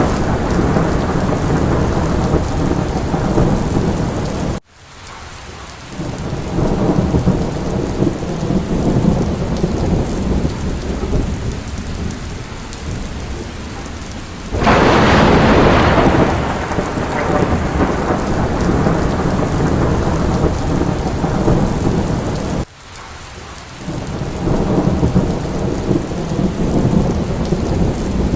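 Heavy rain with a steady low rumble of thunder. About halfway through, a loud clap of thunder breaks out and fades over a couple of seconds. Twice the sound drops away abruptly and swells back.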